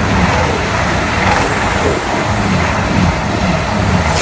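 Train passing close by at speed: a loud, steady rumble and rush of wheel noise that starts suddenly just before and runs on without a break.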